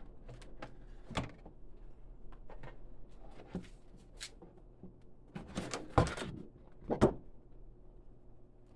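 Unpacking noises: the Starlink dish and its padding are handled in the shipping box, making scattered taps, rustles and knocks. Two louder knocks come about six and seven seconds in.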